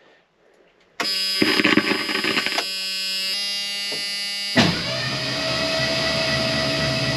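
A 1984 Ford F-150's dash warning buzzer starts about a second in, a steady buzz as the key is switched on. Just past halfway, the starter begins cranking the 302 V8 over without it catching, with the buzzer still sounding.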